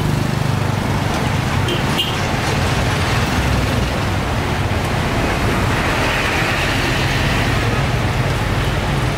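Road traffic running steadily along a busy street, with a continuous low engine rumble and general street hubbub.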